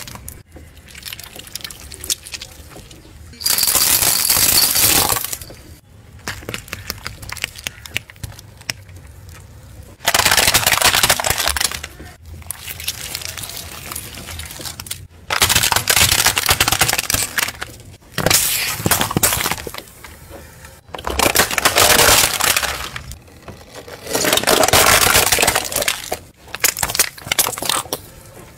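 Car tyre slowly rolling over and crushing things: dry penne pasta snapping, then plastic-wrapped jelly candies and small plastic bottles squashed. Loud bursts of crunching and cracking, each a second or two long, come several times, with quieter crackling between them.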